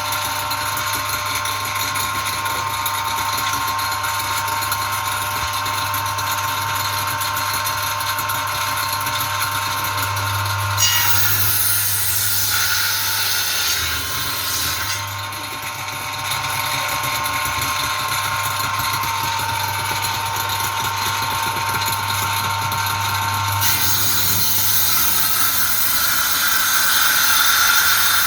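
Handheld electric circular saw mounted under a table as a saw bench, running steadily and cutting boards. Its sound changes about eleven seconds in and again near the end, growing brighter and a little louder.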